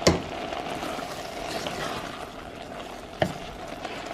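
Apple chunks simmering in a saucepan with a little water: a steady bubbling sizzle. Two sharp knocks cut through it, one at the very start and one about three seconds in.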